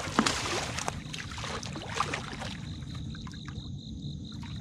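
Water splashing as a caught blue catfish is let go into the shallows: a burst of splashes and drips in the first couple of seconds that dies away, leaving crickets chirping steadily.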